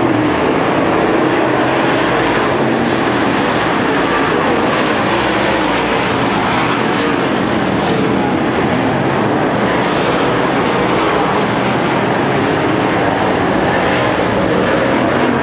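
A pack of dirt late model race cars racing around the oval, their V8 engines blending into one loud, steady drone.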